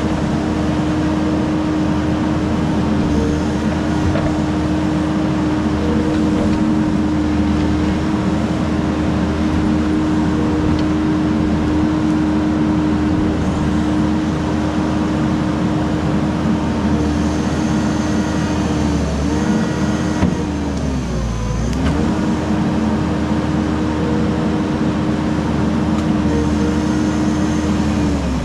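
Diesel engine of a heavy machine running at high revs for the whole stretch, its pitch sagging briefly a few times in the second half as it takes load and recovering each time.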